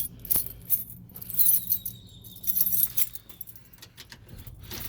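A bunch of keys jangling, in a few short bursts of metallic clinking.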